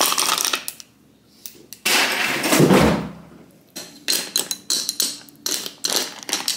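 Glass iced-coffee tumbler handled on a stone countertop: short clinks and knocks of the glass and its lid, thickest from about four seconds in, with a longer rushing noise and a low thud about two seconds in.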